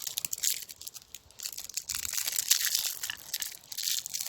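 Dried herbs crackling and crunching as they are crushed and handled by hand, growing busier and louder about halfway through.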